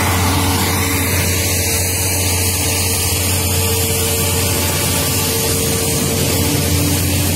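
Steady rush of strong wind and heavy rain, with a low steady hum underneath.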